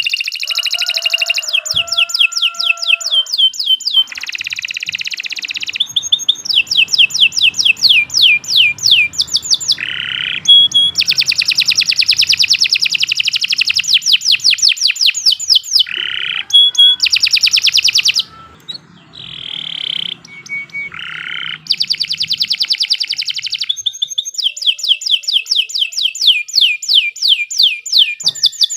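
Domestic canary in full, long song: fast trills of rapidly repeated sweeping notes alternating with short buzzy phrases, with a brief pause about two-thirds of the way through.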